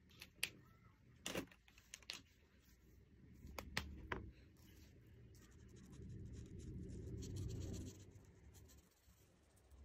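Felt-tip art marker rubbing across paper as a picture is coloured in, a steady scratchy sound for a few seconds after the middle. Before it, several sharp clicks and taps.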